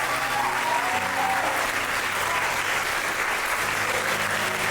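An audience applauding, steady throughout, with a soft music bed of held low notes underneath.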